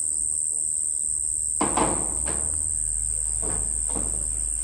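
Night insects trilling steadily at a high pitch, with a low hum beneath and several short knocks, the loudest about a second and a half in.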